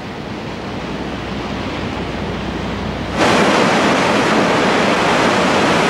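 Rushing sea noise of a warship's bow cutting through the waves, swelling gradually. About three seconds in it jumps abruptly to a louder, steady rush of wind and sea.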